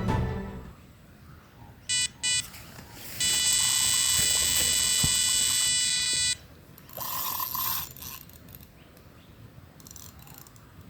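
Electronic carp bite alarm: two quick single bleeps, then a continuous tone for about three seconds, the sign of a run with a fish taking line. A short rasping noise follows about a second later.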